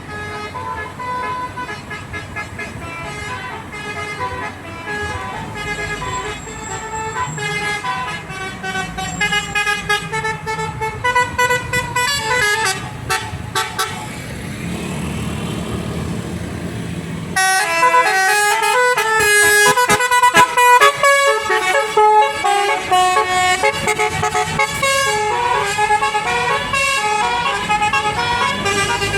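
Telolet basuri multi-tone bus air horns playing a quick tune of stepping notes. Between tunes comes a brief low rumble, then about 17 seconds in a second, louder horn tune starts abruptly.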